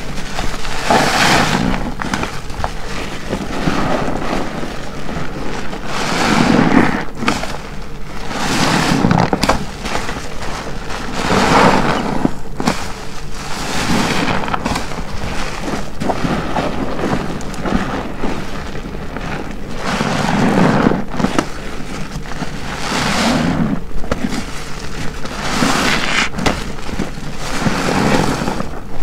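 A big car wash sponge soaked in detergent is squeezed by hand over and over, squelching as soapy water gushes out. There is a squeeze roughly every two to three seconds.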